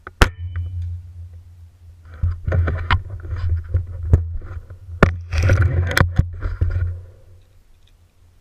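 A Gamo Whisper suppressed break-barrel air rifle fires once with a sharp crack just after the start. From about two seconds in there are several seconds of rumbling, rattling handling noise with repeated clicks and knocks, picked up by a camera clamped to the rifle's scope.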